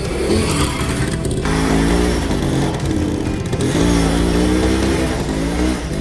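Restored Honda 70cc four-stroke motorcycle engine running and being revved, its pitch rising and falling in several swells.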